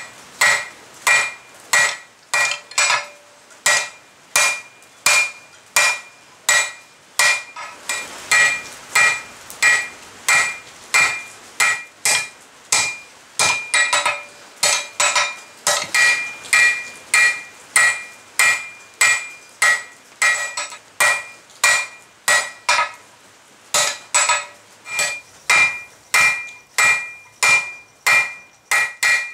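Hand hammer striking red-hot steel flat bar on an anvil, drawing out the rein of a pair of blacksmith's tongs. It beats a steady rhythm of about two blows a second, each with a bright metallic ring, with a short pause about three-quarters of the way through.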